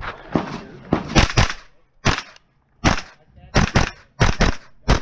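Pistol-caliber carbine firing rapidly, about eleven shots in five seconds, several of them quick pairs, each shot a sharp crack with a short ring.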